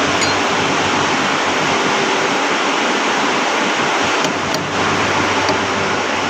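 A loud, steady rushing noise with no clear pitch, with a couple of faint clicks about four seconds in.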